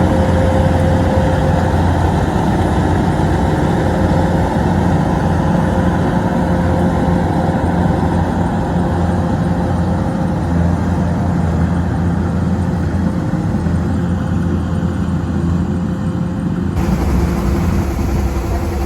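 A heavy engine running steadily at an even speed, its sound changing abruptly near the end.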